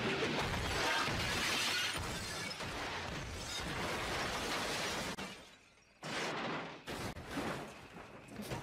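Car crash sound effects from a TV drama clip: a long stretch of crunching, shattering noise as a car is rammed, then a brief drop in level about five and a half seconds in, followed by a sudden loud impact and several sharp knocks.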